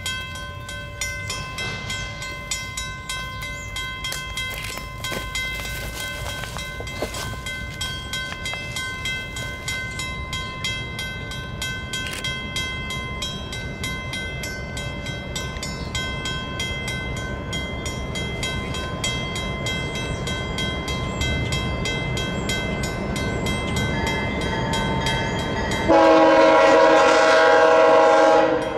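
An approaching freight train led by two EMD SD40-2 diesel locomotives: a low rumble that grows slowly louder. About 26 seconds in, a loud locomotive horn blast of about three seconds, sounding several notes at once.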